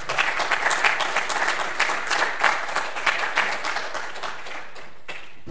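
Audience applauding: dense clapping that thins out and stops near the end.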